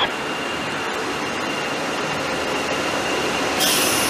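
HEMU-430X high-speed electric train running in along a station platform: a steady rushing noise with a thin, steady high whine. A sharper, louder hiss joins about three and a half seconds in as the cars come alongside.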